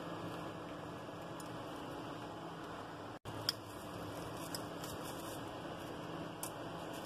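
Steady low room noise with a faint hum, and a few light clicks and taps as fingers handle the small parts of an opened Vivo Y19 smartphone; the sharpest click comes about three and a half seconds in. The sound drops out for an instant just before it.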